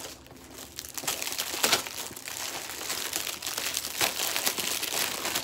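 Paper packaging crinkling and rustling as a box is handled and unwrapped, with sharper crackles about a second and a half in and again about four seconds in.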